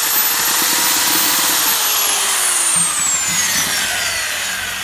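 SDS drill spinning a spiral paddle mixer through sand-and-cement mortar in a bucket, its motor whining at a steady pitch. About a second and a half in it is let off and the motor winds down, the whine falling in pitch and fading.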